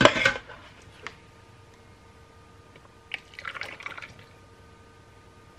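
A metal pot clanks as it is lifted, then thick raw soap batter pours from the stainless steel pot into a plastic measuring jug, a soft splashing about three seconds in.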